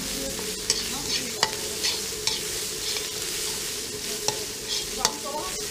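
Pounded chili-and-herb curry paste sizzling in oil in a metal wok while a metal spatula stirs it, with a handful of sharp clinks as the spatula strikes the pan. The paste is being fried until fragrant.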